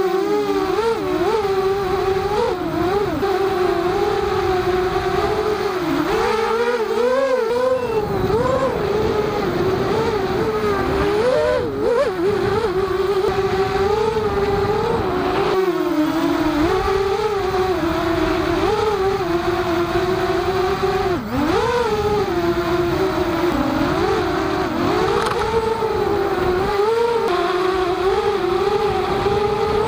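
FPV multirotor drone's electric motors and propellers whining in flight, the pitch rising and falling constantly with the throttle.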